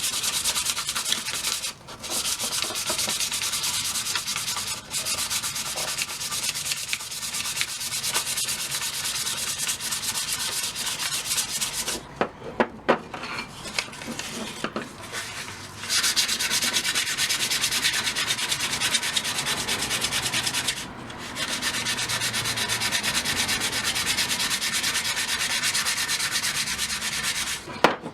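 220-grit sandpaper rubbing along a wooden hammer handle: a steady rasping hiss that smooths off burrs and uneven spots left after scraping off the old finish. It stops briefly a few times, with a quieter stretch of a few seconds around the middle.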